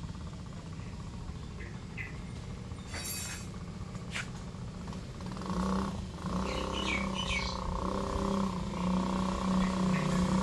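Small single-cylinder four-stroke engine of a 50 cc mini ATV, heard running steadily from about halfway through, after a quieter stretch with a few sharp clicks.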